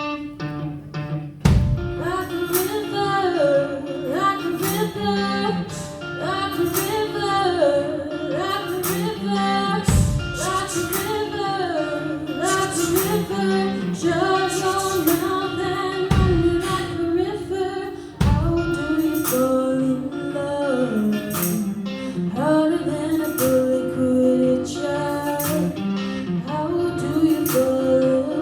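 A woman singing a song over guitar accompaniment with a steady beat, with occasional deep low hits.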